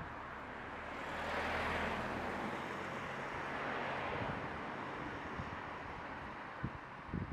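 A vehicle passing at a distance: a broad engine-and-road noise with a low hum that swells about a second in and fades away over the next few seconds. A few low thumps near the end.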